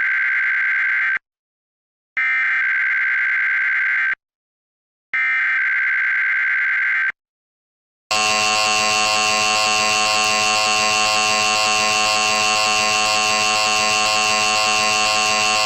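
Emergency Alert System test: the SAME digital header data bursts, each about two seconds long with a second of silence between, then about eight seconds in the steady two-tone EAS attention signal starts and holds.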